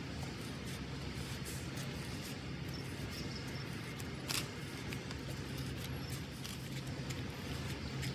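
Scotch-eyed auger bit turned by hand, its cutters boring into a dead wooden log: faint scattered clicks and creaks of wood being cut, with one sharper click about four seconds in, over a steady low background noise.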